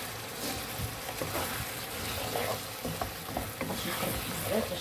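Chunks of fish in tomato sauce sizzling in a nonstick frying pan, stirred with a wooden spoon that scrapes and knocks lightly against the pan, the knocks coming more often from about halfway in.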